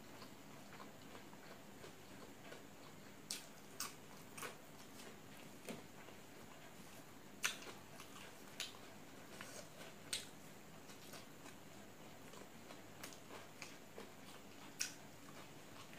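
Close-up eating sounds of rice being eaten by hand from a steel plate: about a dozen scattered sharp clicks and smacks, irregularly spaced, over a faint steady background hum.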